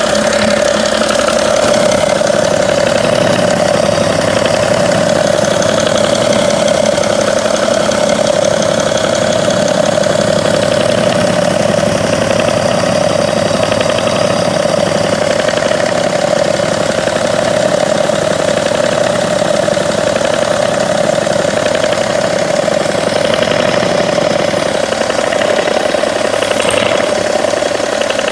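BMW 335d's straight-six diesel idling hot, with a slight intermittent clicking from the front of the engine, towards the crankshaft damper pulley. The clicking comes in spells of about two seconds every three seconds, a tick that appears only when the engine is warm and idling.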